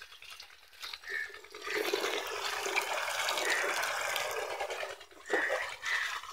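Water poured from a container into the plastic tank of a knapsack crop sprayer, splashing through the strainer in the filler opening for about three seconds, from near two seconds in. Two short knocks follow near the end.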